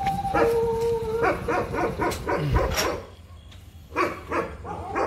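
Dog howling and barking: a held howl, then a quick run of short yelps and barks, and a few more barks near the end.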